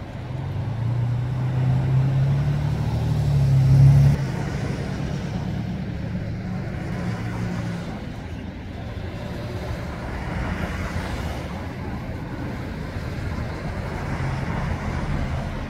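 A motor vehicle's engine running close by, growing louder for the first few seconds and then cutting off suddenly about four seconds in, followed by steady street traffic noise.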